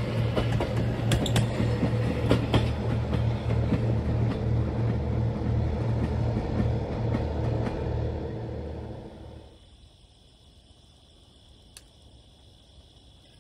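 Stainless-steel streamlined passenger cars rolling past: a low rumble of wheels on rail with a repeating beat and sharp clicks and clatter. It fades away about nine seconds in as the train recedes, leaving faint steady high insect chirping.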